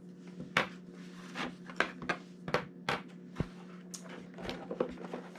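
Irregular clicks and knocks of the heat plate's plastic legs and packaging being handled and taken out of the box, over a steady low hum.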